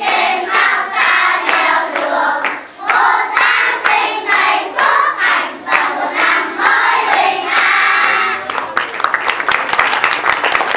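A choir of young children singing together; about nine seconds in, the singing gives way to clapping.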